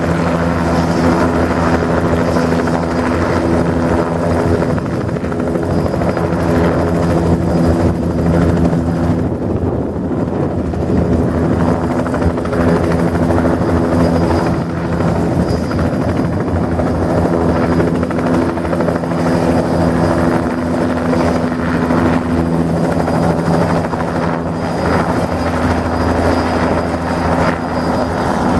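Bell 206B JetRanger II helicopter running close by, its single turbine and rotors making a loud, steady buzzing hum with a layer of noise. The hum thins for a few seconds about ten seconds in, then comes back.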